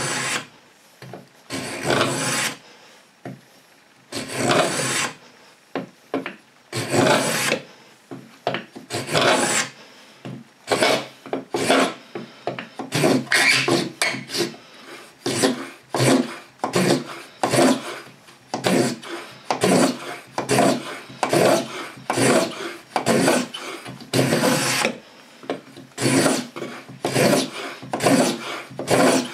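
Lie-Nielsen No. 66 beading tool's hardened steel scraper blade scraping a profile along a narrow strip of wood in repeated push strokes. The strokes come a couple of seconds apart at first, then quicker, about two a second, from around ten seconds in.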